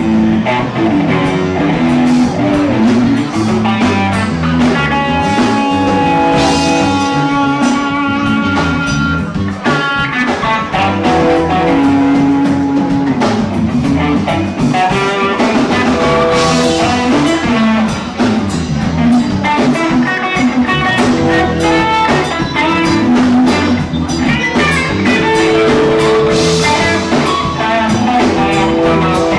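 Live rock band playing: electric guitars over drum kit, bass guitar and keyboard, in continuous melodic passages.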